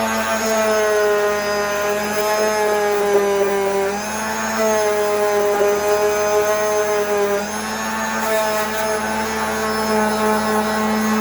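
Orbital sander running steadily, sanding down cured Bondo body filler, with a steady motor hum whose pitch and level shift a little about four and seven and a half seconds in as it works against the surface.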